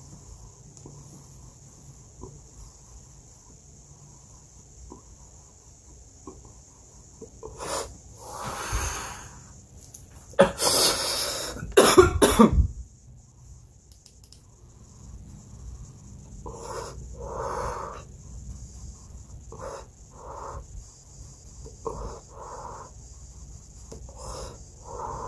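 A man coughing hard after inhaling dab vapour from a Puffco Proxy electric dab rig. A few quiet seconds come first, then a harsh breath, then a burst of loud coughs about ten to thirteen seconds in. After that come short repeated breaths in and out as he blows out the smoke.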